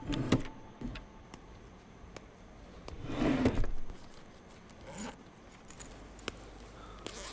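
A wooden drawer being opened and things handled inside it: a few light clicks near the start, then a short scraping rustle about three seconds in and a smaller one about two seconds later.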